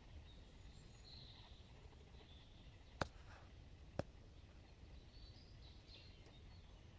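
Faint birdsong, with scattered high chirps over a low steady rumble, cut by two sharp clicks about a second apart midway.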